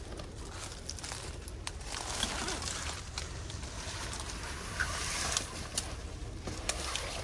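Rustling of nylon fabric and backpack straps, with scattered light clicks and ticks, as a backpack is taken off and gear is handled.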